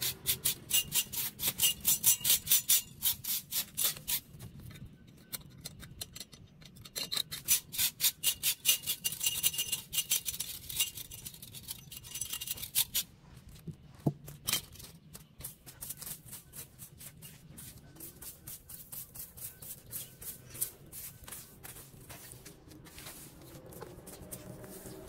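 Stiff brush sweeping dry leaves and sand across concrete around a metal drain grate, in quick scraping strokes of about three a second. The strokes come in bursts with short pauses and are fainter in the second half.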